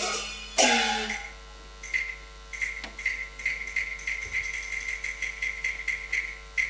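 Cantonese opera percussion accompanying stage movement. A loud gong-like strike about half a second in rings with a falling pitch, then a run of quick light taps, about five a second, leads into another strike at the very end.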